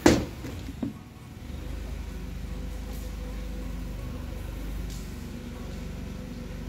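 A heat gun set down on the workbench with a loud knock, a lighter knock just under a second later, then a steady low hum.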